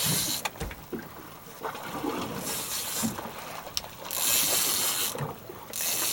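Large fishing reel working against a hooked shark: hissing bursts of the drag giving line, four of them about a second apart to a second long, with scattered clicks between.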